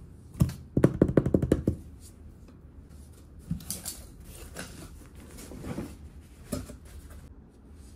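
Cardboard shipping box being opened: a quick run of sharp crackling clicks about a second in as the packing tape comes away, then softer scrapes and rustles as the cardboard flaps are folded open.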